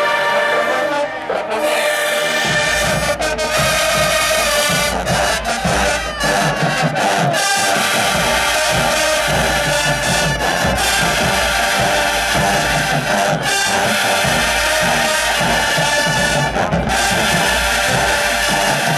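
Marching band brass playing a loud, sustained tune, with heavy low drums kicking in about two and a half seconds in.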